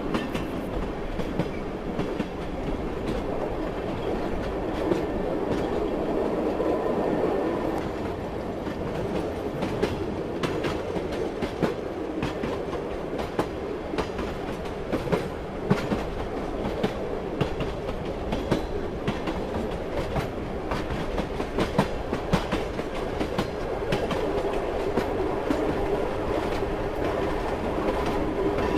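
Passenger train rolling steadily along the track: a continuous rumble with the irregular clickety-clack of wheels striking rail joints.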